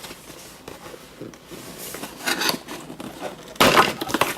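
Toy packaging and plastic pieces being handled: scattered scraping, rustling and small clicks, with a louder rustling scrape about three and a half seconds in.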